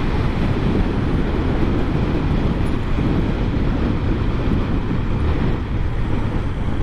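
Steady road and engine noise of a moving car.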